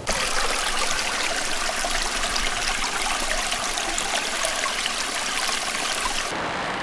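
Running water, a stream flowing with a steady dense hiss and fine splashing, starting suddenly. About six seconds in, the sound changes as its highest hiss drops away.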